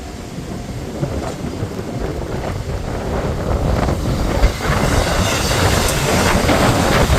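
Strong gusting wind buffeting the microphone, a heavy rumble with a rushing hiss that grows louder from about five seconds in.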